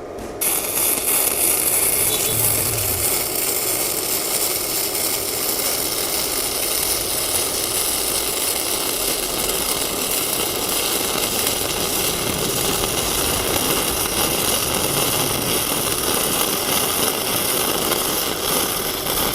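Gasless flux-cored MIG welding arc on thick steel plate, set to about 200 amps, crackling steadily; it strikes up suddenly about half a second in and keeps running as a continuous bead is laid.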